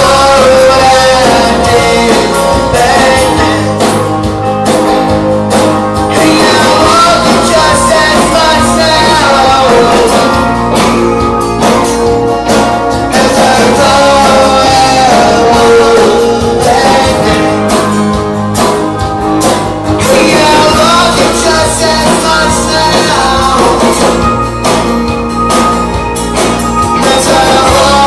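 A live band playing a song: a man singing lead over strummed acoustic guitar, electric guitars, bass guitar and a drum kit, loud and steady throughout.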